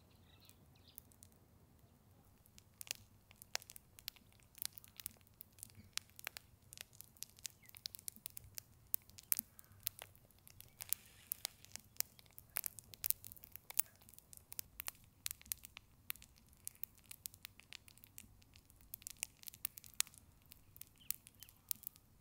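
Safety match heads crackling as they catch fire one after another in a burning mound of matches: irregular sharp pops, few at first, then coming thick and fast from about three seconds in, easing off for a while and quickening again near the end.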